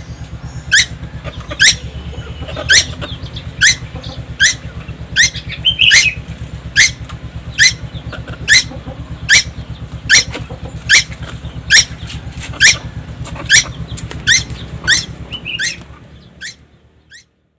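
Young tuwu bird calling nonstop: a sharp, high note that drops quickly in pitch, repeated about once a second. A steady low engine-like hum runs underneath, and everything fades out near the end.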